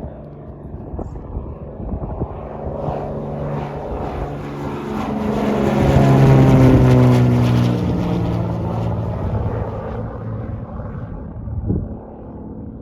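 Small propeller airplane passing close by: its engine and propeller drone swell to a peak about halfway, drop in pitch as it goes past, then fade.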